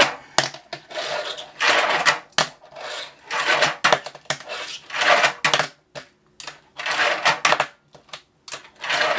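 A fingerboard's small wheels rolling in repeated runs across a plastic ramp and tabletop, each run a second or less, with sharp clacks of the board landing and popping between them.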